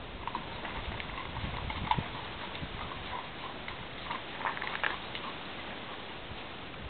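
A horse's hoofbeats: irregular soft thuds and clicks, with one sharper knock about two seconds in.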